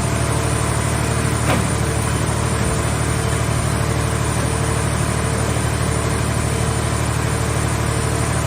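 The power unit of a car-shell baler running steadily, an even low engine-like rumble driving its hydraulics, with one faint click about one and a half seconds in.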